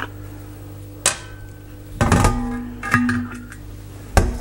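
Knocks and clatter from handling a metal 5-litre mini keg and the malt extract bottle over a steel sink. A sharp click comes about a second in, then clusters of knocks with brief ringing tones around two and three seconds in, and more knocks near the end. A steady low hum runs underneath.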